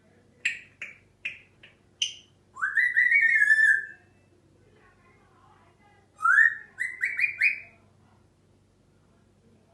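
A bird calling: five short sharp chirps in quick succession, then a longer warbling whistle that rises and holds, and after a pause another rising whistle broken into quick repeated notes.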